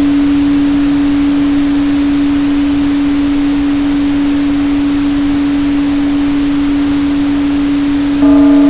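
A steady 285 Hz pure tone held over an even pink-noise hiss. Near the end a struck, bowl-like ringing tone with higher overtones comes in, and the sound gets louder.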